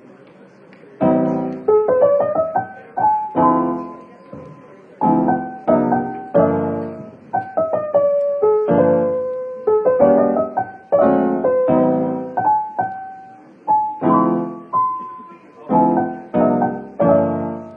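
Background piano music: chords struck one after another, each ringing and fading, starting about a second in.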